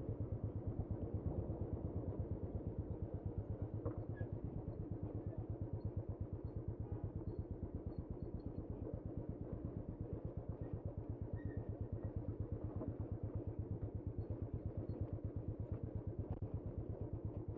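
Motorcycle engine running steadily with an even, rapid pulsing putter.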